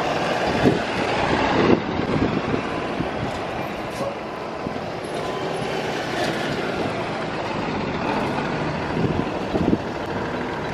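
School bus engine running steadily as the bus drives past close by, with tyre and road noise.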